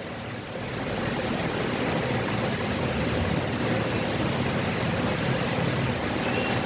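Voltas Windsor 65 desert air cooler's fan running with a steady whoosh of air and a low hum, building up over the first second or so, then holding even.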